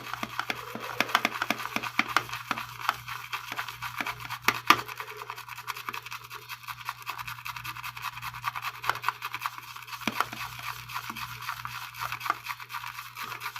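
A wet 33 mm comfort knot shaving brush being swirled over a dry, unbloomed puck of very hard shaving soap to load it: a continuous run of fine, scratchy bristle-on-soap brushing.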